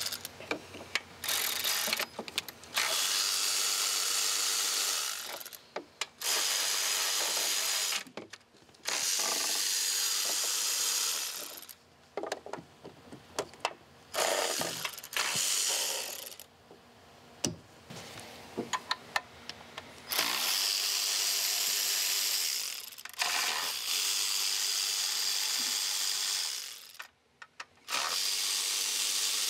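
Electric ratchet spinning out 13 mm intake manifold bolts through a socket and long extension. It runs in bursts of a few seconds with short pauses, with clicks and knocks of the socket between bursts.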